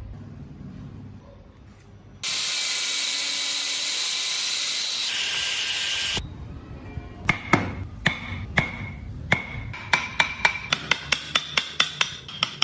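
A loud steady hiss lasting about four seconds. Then a series of sharp hammer taps ringing on metal, a few at first and coming quicker, about three a second, near the end.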